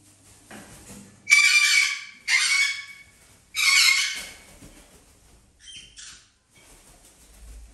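A parrot screeching: three loud, harsh squawks about a second apart, then two shorter, fainter calls.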